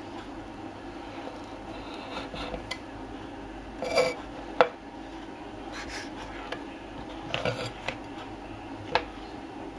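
Kitchen knife slicing cured pork belly on a wooden cutting board: soft scraping strokes through the meat and several sharp knocks of the blade on the wood, the loudest a little over four and a half seconds in. A steady low hum runs underneath.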